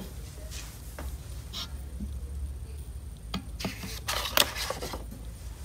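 A paper page of a picture book being handled and turned: a few soft rustles and scrapes, the loudest about four seconds in as the page is flipped over.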